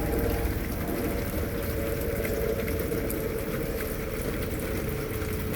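Steady rain falling, an even hiss with scattered drop ticks over a low rumble.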